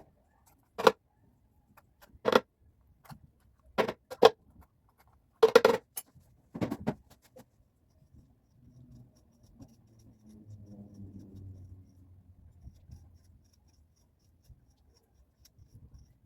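Kitchen clatter during food preparation: about seven short sharp knocks and clinks of utensils and dishes being handled, then a faint low rumble.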